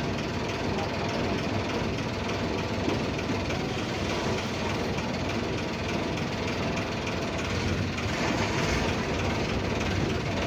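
Long-tail boat engine running steadily, a continuous dense mechanical din.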